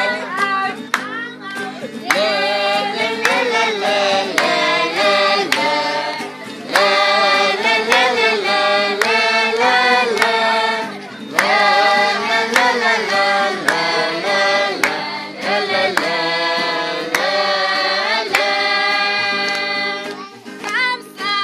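A group singing a Christian action song over a musical accompaniment with held notes, with hand claps marking the beat. The singing breaks off briefly twice, between phrases.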